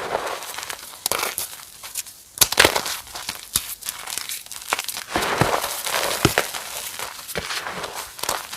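Reformed chalk crunching and crumbling: a run of sharp crackles and snaps over a powdery rustle, loudest about two and a half seconds in.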